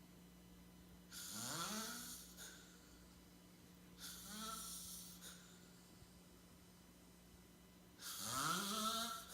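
A man snoring: three snores about three to four seconds apart, each rising in pitch and carrying an airy hiss. A faint steady hum runs underneath.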